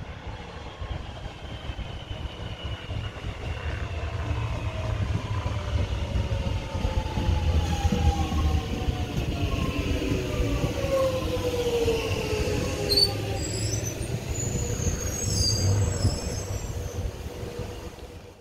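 Alstom X'Trapolis 100 electric train pulling into a platform and slowing: the motor whine falls steadily in pitch over a low rumble of wheels on rail, with a few brief high squeaks about two-thirds of the way in.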